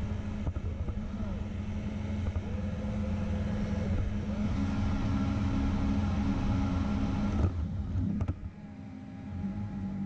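Xiaomi Roborock S50 robot vacuum cleaner running, heard from a camera riding on top of it: a steady motor hum with a few faint steady tones above it as it drives along. The sound changes and drops about seven and a half seconds in, with a click just after.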